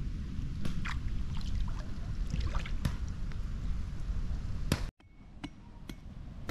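Wind rumbling on the microphone over small waves lapping at the sandy lagoon shore, with scattered light clicks and splashes. About five seconds in the sound cuts out abruptly and comes back quieter.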